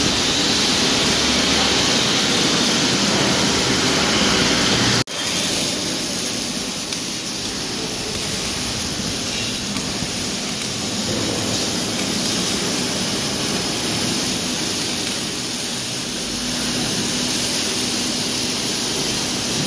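Steady rushing noise of a large steel fabrication workshop, with machinery running in the hall and no single distinct event. It breaks off for an instant about five seconds in, then carries on slightly quieter.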